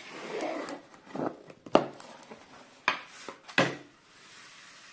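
A diamond painting canvas under its plastic cover film rustling and crinkling as it is unrolled and smoothed flat by hand, with three sharp wooden knocks as its wooden hanger rails meet the wooden surface.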